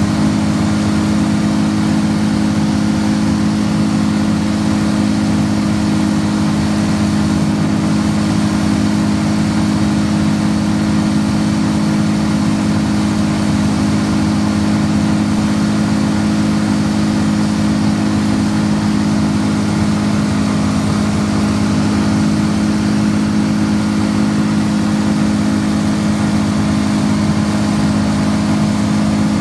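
Towed wood chipper's engine running at a steady constant speed with no load, a loud, even hum with steady overtones and no branches being fed through.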